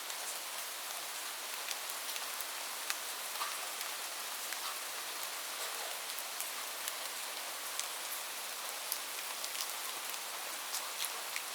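Light rain falling steadily: an even hiss with scattered individual drops ticking on a surface.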